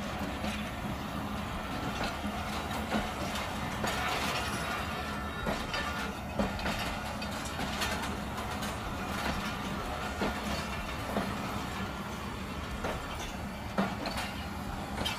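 A train rolling slowly, its wheels clicking irregularly over rail joints above a steady low hum.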